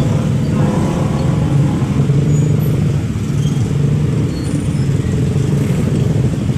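Vehicle engine and road noise, a steady low drone.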